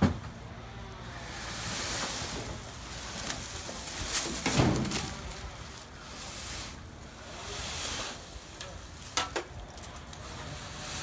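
Dry pine branches and needles rustling and crackling as storm debris is pulled and dragged off a roof, coming in several swells, the loudest about four and a half seconds in. A couple of sharp clicks near the end.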